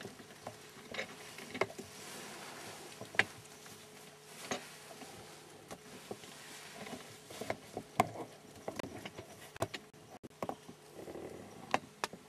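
Irregular light clicks and ticks over a faint hiss, loudest about three seconds in and again about eight seconds in.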